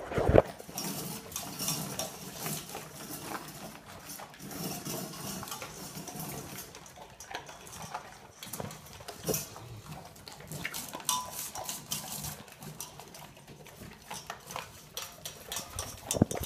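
Several dogs eating from their bowls: irregular crunching of kibble and chewing of chicken pieces, with the bowls clattering and knocking, one sharp knock right at the start.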